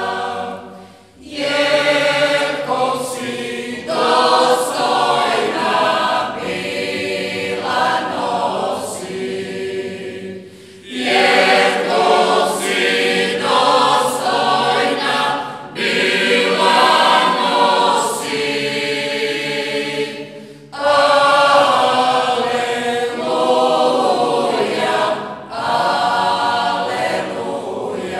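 Mixed-voice choir singing a Marian hymn unaccompanied, in folk style, in long phrases with short breaks between them.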